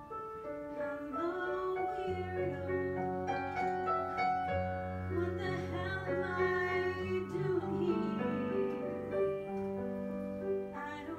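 A woman singing with live piano accompaniment, the piano sustaining low chords under her long held notes.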